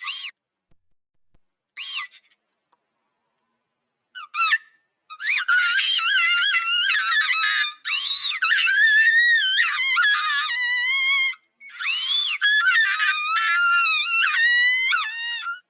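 A cartoon character's crying, pitch-shifted very high and warbling like a whistle: a few short sobs, then long wavering wails with two brief breaks.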